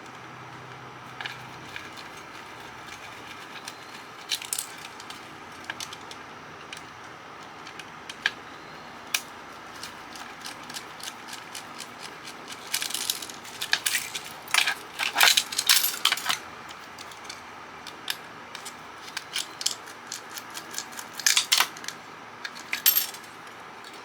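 Small clicks, taps and clatters of a screwdriver and loose metal and plastic parts being handled while a CB radio is taken apart. The taps are scattered, with busier runs of clicking about halfway through and again near the end.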